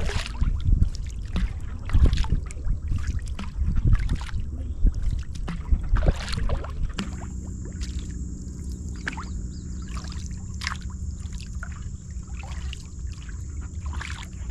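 Kayak paddle strokes in salt water: the blades splashing and water dripping and trickling off them alongside a sea kayak, with louder splashes about every two seconds in the first half.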